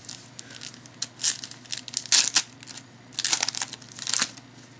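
Trading-card pack wrapper being crinkled and torn open by hand, in four or five short bursts of crackling about a second apart.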